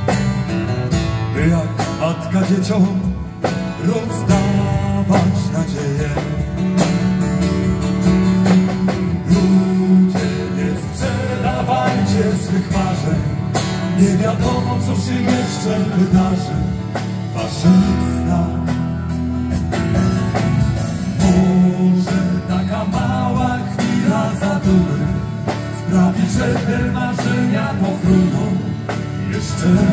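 Small band playing a song live, two acoustic guitars strummed over drums with a steady beat.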